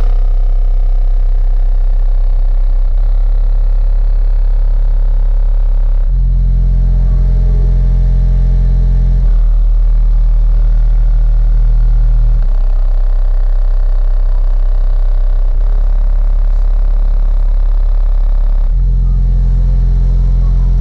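Car audio system playing very loud, deep bass: sustained low notes that change pitch about every three seconds.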